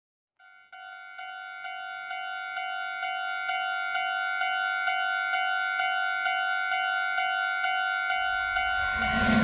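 Japanese railroad crossing warning bell ringing its repeating "kan-kan" tone about twice a second, growing steadily louder. Near the end the rumble of an approaching train comes in under it.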